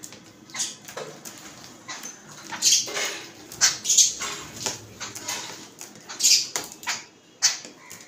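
A flock of babblers calling, a run of harsh, squeaky chattering notes repeated in quick bursts, loudest a few seconds in.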